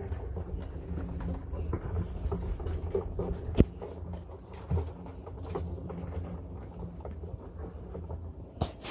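Blue land crabs crawling over a plastic lid and tire, their legs and claws making a patter of small clicks and scrapes, with one sharper click about three and a half seconds in, over a low steady rumble.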